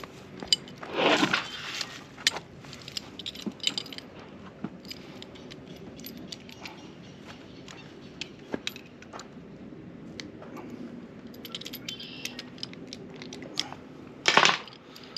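Small metal rigging fittings clinking and jingling as they are handled, with scattered light clicks. Two louder, brief rushes of noise, one about a second in and one near the end.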